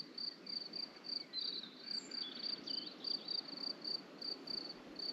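A cricket chirping in a steady, even rhythm of about three to four high chirps a second.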